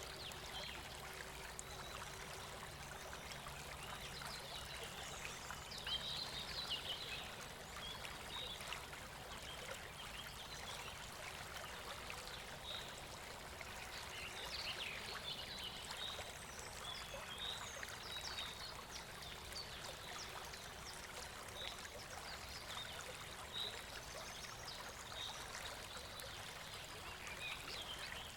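River water flowing steadily, with a constant rushing and gurgling.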